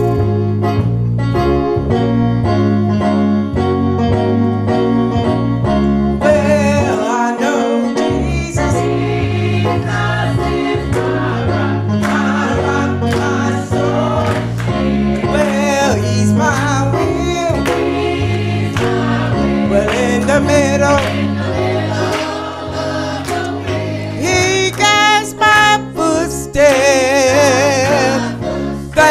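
Gospel song: a band with a steady beat and bass, and singing voices that come in about six seconds in.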